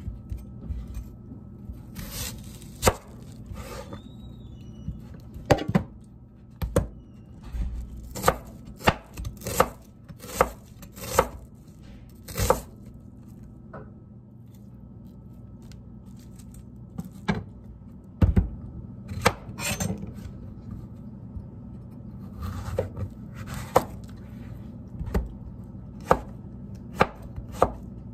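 Kitchen knife chopping a white onion and slicing a zucchini on a cutting board: sharp knocks of the blade on the board, in uneven runs with a sparser stretch in the middle, over a low steady hum.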